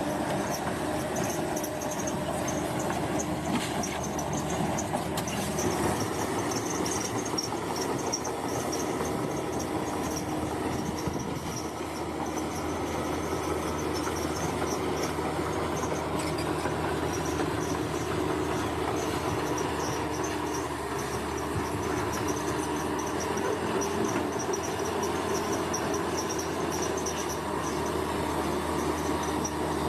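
Bulldozer's diesel engine running steadily under work, a constant heavy mechanical drone. A high, pulsing insect chirr sits above it.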